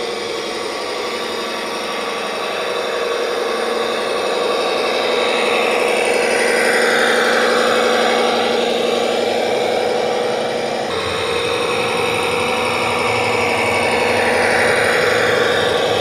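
Radio-controlled scale model Komatsu HD405 dump truck driving, a steady mechanical drone with an engine-like pulse. A higher whir swells as the truck passes close, about seven seconds in and again near the end.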